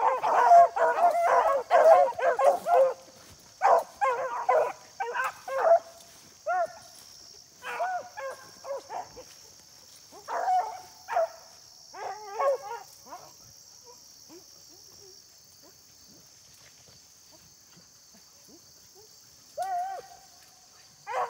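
A pack of beagles baying as they run a rabbit through brush, the cry of hounds on the rabbit's trail. It starts as a dense chorus for the first few seconds, then breaks into scattered bays that thin out and stop about halfway through, with one more bay near the end.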